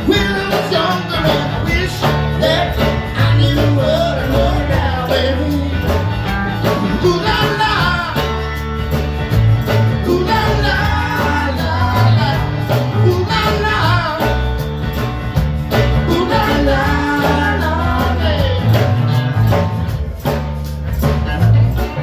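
Band music with a steady beat, bass, guitar and a singing voice.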